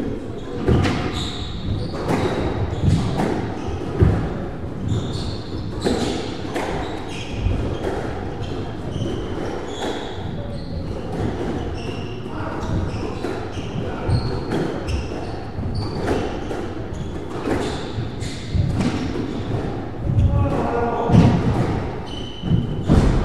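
Squash rally: the ball cracking off the rackets and thudding against the court walls about once a second, with rubber-soled shoes squeaking briefly on the wooden floor between shots.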